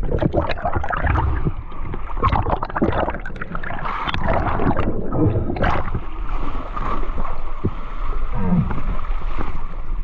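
Water sloshing and splashing around a boat at sea, with uneven buffeting noise throughout.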